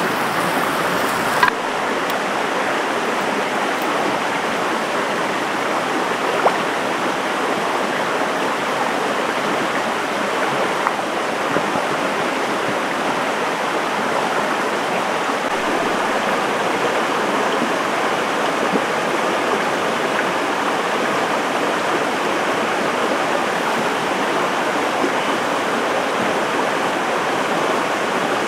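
Stream water flowing steadily, with a few faint clicks over it.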